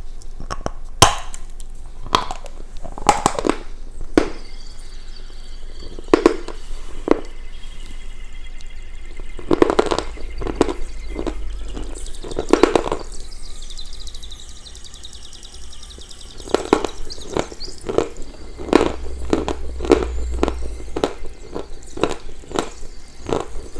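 Dry edible chalk of the Khrustal kind bitten off and crunched between the teeth close to a clip-on microphone: a long run of sharp, crisp crunches with chewing, thinning out for a couple of seconds in the middle.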